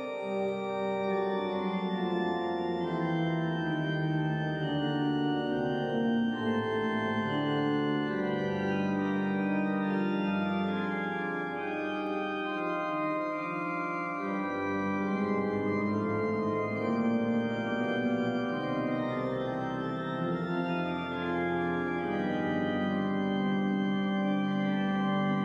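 Organ music of slow, sustained chords that shift every few seconds.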